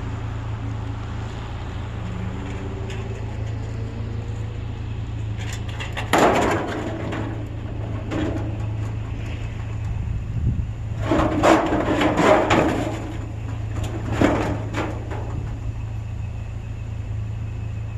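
Steady low hum of an idling vehicle, with loud bangs and clattering of scrap pieces being handled and dropped, about six seconds in, again from about eleven to twelve and a half seconds, and once more near fourteen seconds.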